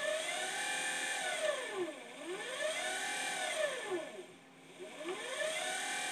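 36-volt DC electric motor on a Curtis 1204 controller whining as it speeds up and slows down about three times, its pitch rising and falling with each press and release of the converted sewing-machine foot-pedal throttle.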